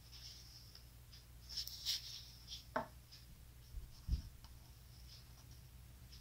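Faint handling of an injection-moulded plastic tray: fingers rubbing and tapping on its lacquered surface, with light scraping about a second and a half in, a sharp click near three seconds and a soft low thump around four seconds.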